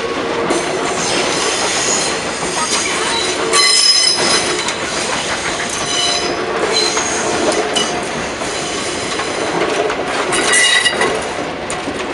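Railway passenger coaches rolling past on curved track, their wheels squealing against the rails in high, on-and-off squeals over the steady rumble of wheels on rail. The squeal swells briefly about four seconds in and again near the end.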